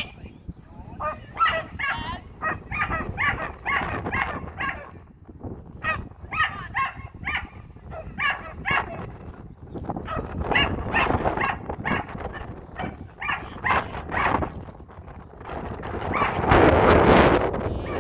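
Dog barking repeatedly in quick runs of short barks, with brief pauses between runs. A louder rushing noise comes in near the end.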